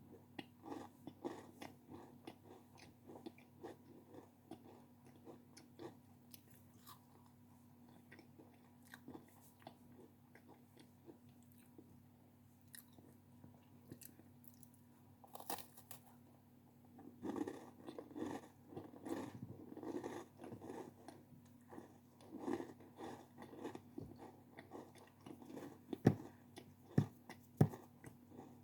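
Close-miked chewing and biting of crunchy snacks, a run of small crisp crunches that grows busier and louder past the middle, with a few sharp bites near the end, over a faint steady hum.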